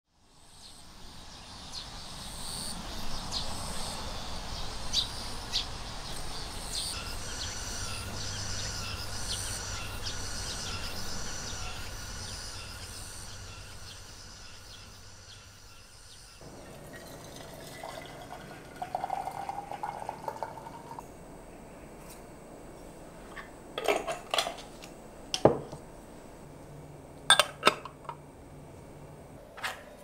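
A steady outdoor hiss with many short, high chirps for the first half. After a cut, liquid is poured with a rising tone for a few seconds, then cups and dishes clink sharply several times.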